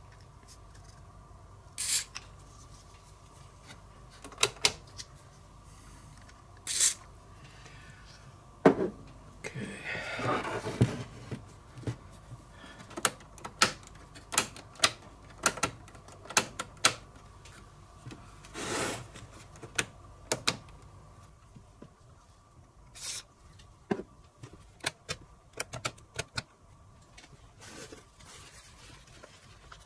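Short hisses of aerosol contact cleaner sprayed into the radio cassette's band switch, with rapid clicking as the switch is worked back and forth to clean its contacts. A longer scraping rub comes about ten seconds in, and there are handling knocks as the set is moved.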